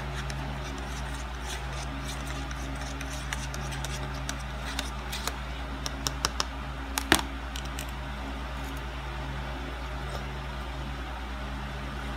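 A steady low hum runs throughout. Over it, through the middle, come scattered small clicks and taps, the sharpest about seven seconds in.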